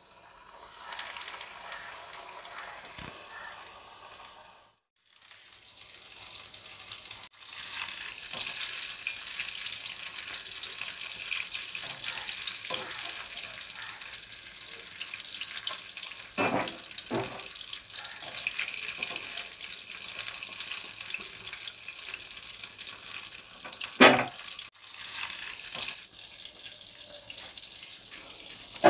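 Breaded fish fingers deep-frying in hot oil in an iron kadai: a steady sizzling hiss. A few clicks and one sharp knock about 24 seconds in break through it as the pieces are handled with a wire skimmer.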